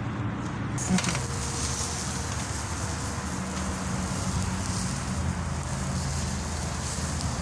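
Charcoal grill's electric blower fan running: a steady motor hum with a hiss of air over the coals. A single click sounds about a second in.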